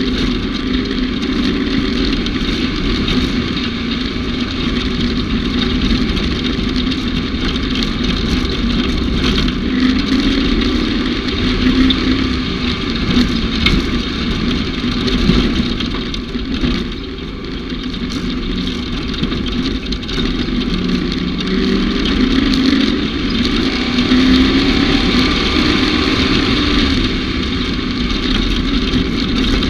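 Kawasaki Mule utility vehicle engine running steadily under way. Its pitch wavers as engine speed rises and falls, and it eases off briefly a little past halfway.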